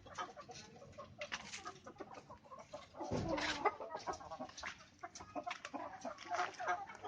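Chicken clucking in short, scattered calls, mixed with small ticks and taps.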